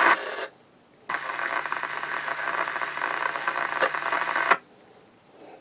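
Fire-radio traffic on a Uniden BC396XT police scanner: one transmission cuts off about half a second in, then another keys up for about three and a half seconds of static with a steady hum and no clear words, ending in a sharp squelch-tail click.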